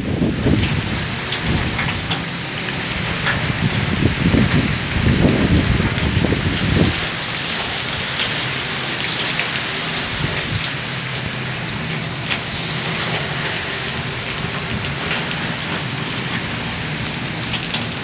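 Cyclone storm wind and heavy rain: strong gusts buffet the microphone with a deep rumble for about the first seven seconds, then a steady hiss of rain with scattered drop hits.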